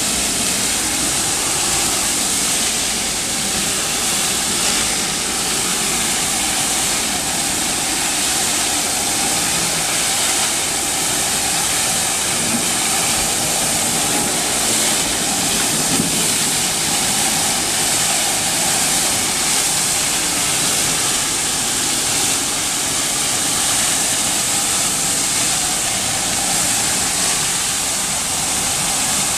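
SX-12 rotary tile-cleaning tool working over a tile floor: water jets spraying at 400 PSI under the spinning head while its vacuum recovery sucks the water back up, making a steady, loud hiss.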